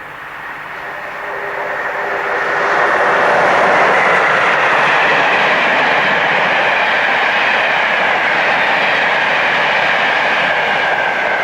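British Rail electric locomotive-hauled train passing at speed. Its rushing rail noise builds over about three seconds, then holds loud and steady as the train goes by.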